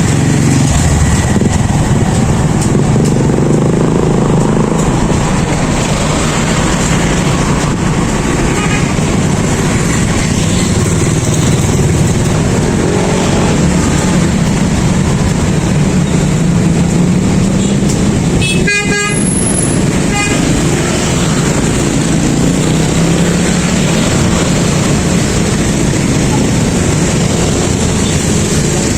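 Busy street ambience: a steady drone of vehicle engines and traffic with a murmur of voices, and a short vehicle horn toot about two-thirds of the way through.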